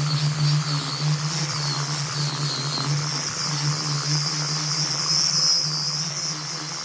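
A machine running steadily: a constant low hum with a wavering high-pitched whine above it.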